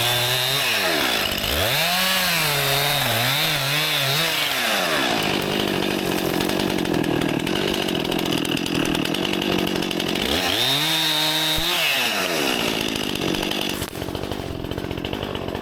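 Stihl MS261 C-M two-stroke chainsaw running at high revs while cutting. Its pitch rises and wavers twice as the throttle is worked, with steadier running in between.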